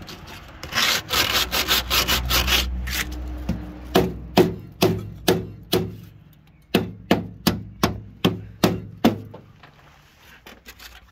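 Hand sanding block rubbing back and forth over body filler on a steel car bulkhead. Quick, close strokes come first, then separate strokes about two to three a second, fading out near the end.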